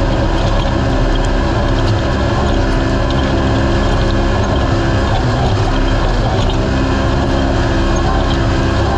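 Naturally aspirated UTV race car engine running hard at a nearly steady speed, over a loud, constant low rumble.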